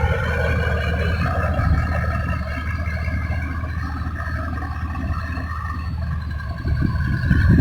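Heavy construction machinery running: a steady low engine drone with a higher steady whine above it, growing louder near the end.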